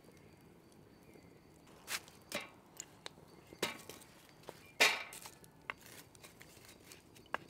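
Wood fire crackling in a metal fire pit: irregular sharp cracks and knocks, the loudest just under five seconds in.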